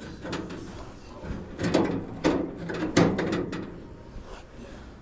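A series of sharp knocks and clatters, like things being handled and set down: three louder ones in the middle among smaller clicks, then quieter.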